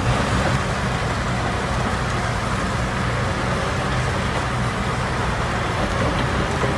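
Large engine-driven wood-processing machine running steadily: a low engine hum under a dense, even rushing noise of material being worked through it.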